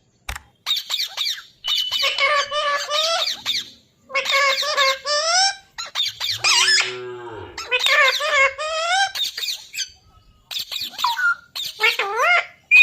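Parrot calling in a run of long, wavering, pitched calls separated by short pauses, with a lower drawn-out call about halfway through.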